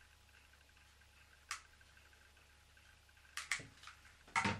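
Sharp clicks of a long-nosed utility lighter's igniter being triggered: one about a second and a half in and a quick few near the end, the last and loudest with a knock under it.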